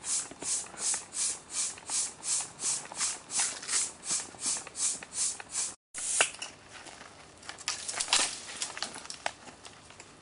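Even, gritty scuffing strokes, nearly three a second, cut off suddenly about halfway through, followed by scattered clicks and knocks.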